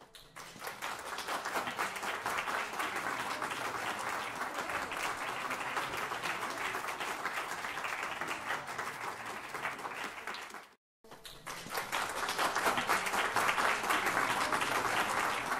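Audience applauding, with many hands clapping at once. The sound cuts out for a moment about eleven seconds in, then the applause resumes.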